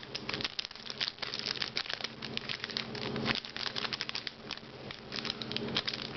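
Foil booster-pack wrapper crinkling and crackling in the hands, many small irregular crackles as a pack is handled and opened, over a faint steady low hum.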